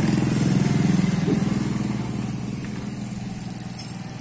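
A motorcycle engine running as it passes by, loudest at first and fading away over the following few seconds.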